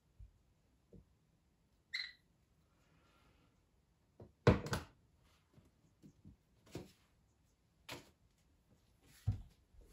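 Quiet handling noises of a person moving things about on a wooden floor: a few scattered knocks and clicks, the loudest about halfway through, then paper sheets rustling near the end.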